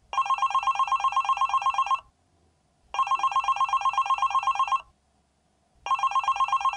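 Smartphone ringing with an incoming call: fast trilling rings in bursts of about two seconds with about a second's pause between, two full bursts and a third starting near the end.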